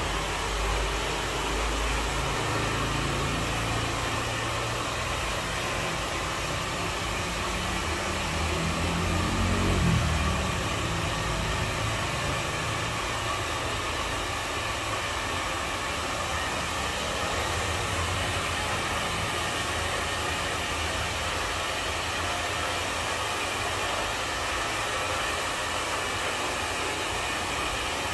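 Steady background noise, with a low rumble that swells briefly about ten seconds in.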